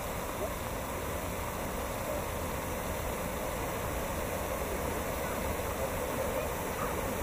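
Steady rushing of a flash-flood front as muddy water surges down a rocky ravine bed during a tropical storm.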